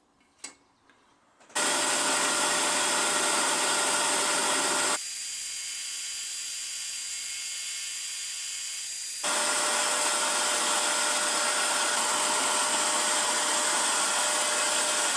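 Hegner scroll saw running and cutting through a thin wooden board, a steady buzz with a few held tones. It starts about a second and a half in, after near silence, and goes quieter and hissier for a few seconds in the middle.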